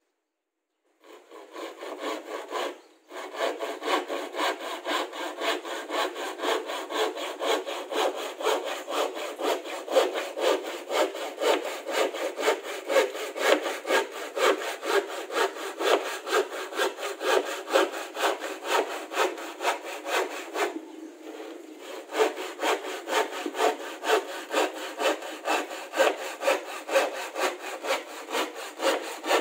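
Handsaw cutting through a sheet of plywood in steady back-and-forth strokes, about two a second. It starts about a second in, stops briefly about three seconds in, and goes softer for a moment around twenty-one seconds.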